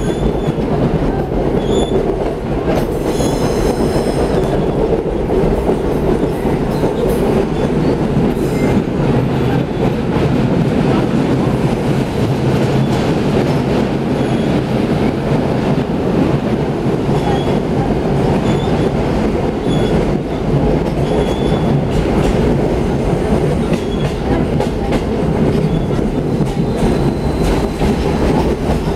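Train running along the track, heard from inside the carriage: a steady, loud rumble of the wheels and running gear.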